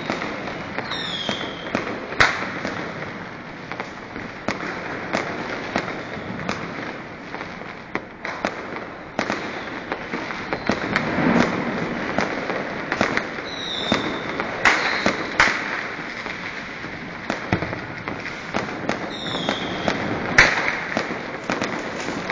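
Fireworks and firecrackers going off all around: a dense, continuous crackle of many small bangs, broken by a few louder sharp bangs, the loudest about twenty seconds in. A short high falling whistle cuts through three times.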